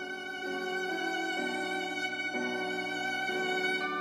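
Solo violin, a German instrument from around 1900, bowed in a slow melody of long sustained notes that change about once a second, with a warm, soft tone.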